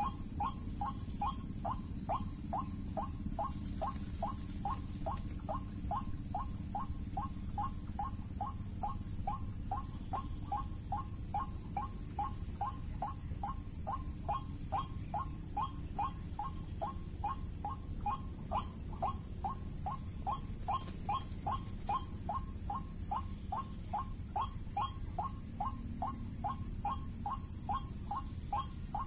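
White-breasted waterhen 'ruak-ruak' call played as a lure recording, short calls repeated in a fast, even train of about two and a half a second. A steady high-pitched whine runs under it.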